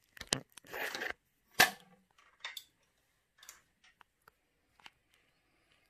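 Handling noise: a string of sharp clicks and knocks with a brief rustle, the loudest knock about a second and a half in, then fainter scattered ticks.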